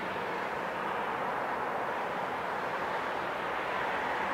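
Jet engines of an easyJet Airbus A320-family airliner running on the runway, heard from a distance as a steady rushing noise that grows slightly louder.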